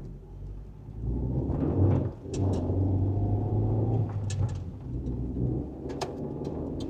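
Car engine and road rumble heard from inside the cabin, the engine note picking up about a second in as the car accelerates. A few short clicks sound over it.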